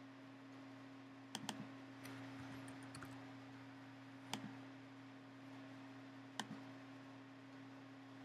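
A handful of sharp, isolated clicks from a laptop's keyboard and trackpad, a quick cluster of them about a second and a half in, over a faint steady hum.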